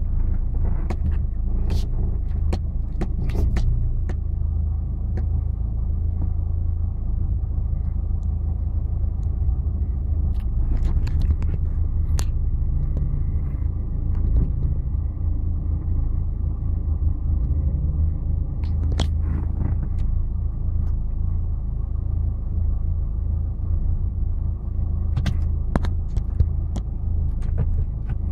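Steady low rumble of an off-road 4x4 crawling slowly over a rocky trail, heard from inside the cabin, with scattered knocks and clicks at intervals.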